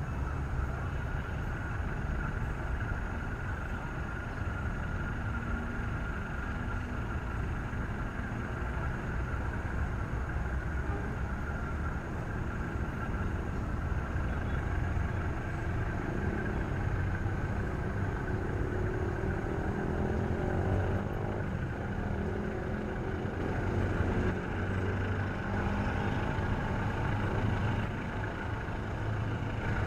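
Diesel locomotive engine running steadily with a low, even rumble.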